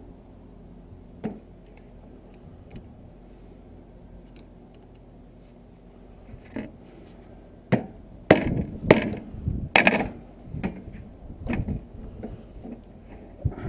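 A metal tool knocking and tapping on a brass water-heater valve to work a pressed-in part loose: one sharp knock about a second in, a quieter stretch of faint scraping ticks, then a run of sharp knocks, about one or two a second, in the second half.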